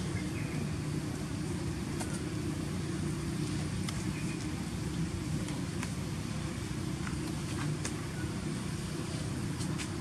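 Steady low outdoor background rumble with a faint hum, broken by a few faint sharp clicks.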